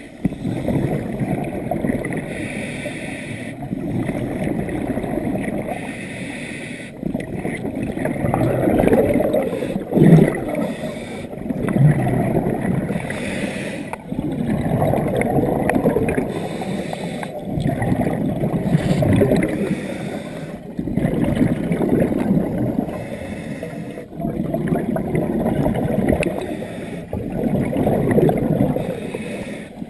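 Scuba diver breathing through a regulator underwater. Each exhaled burst of bubbles gives a rumbling gurgle, and the breaths repeat about every three seconds.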